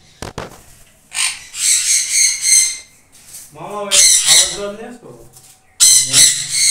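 Sun conures screeching: three bursts of rapid, high-pitched calls, each a second or more long.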